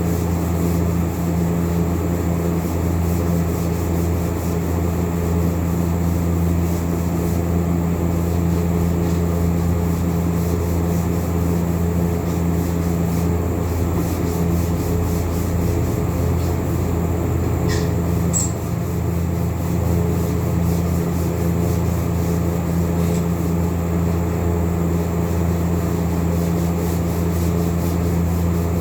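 Electric sander running steadily with a constant motor hum, sanding the cove light box.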